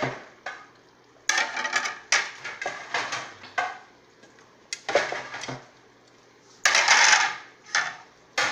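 Dishes and cutlery clattering in about five short bursts with brief pauses between them.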